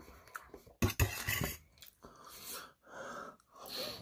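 Close-miked eating sounds: chewing and mouth noises, with a fork clinking and scraping on a metal plate. There is a sharp click about a second in, followed by short scraping noises.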